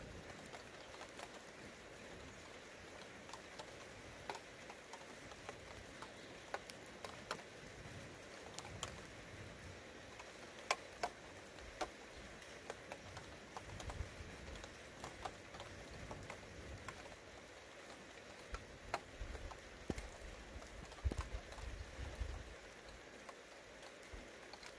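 Light rain pattering, with scattered single drops ticking sharply over a faint steady hiss. Soft low rumbles come and go in the second half.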